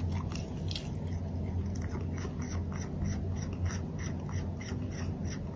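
A cat chewing something crunchy: a quick run of small crunching clicks, about four or five a second, over a steady low hum.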